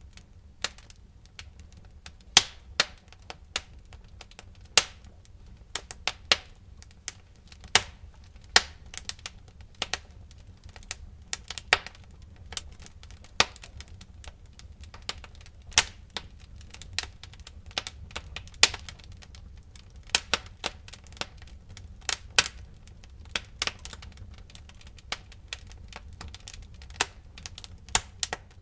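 Logs burning in a fireplace: irregular sharp crackles and pops, several a second with some louder snaps, over a low steady rumble of the fire.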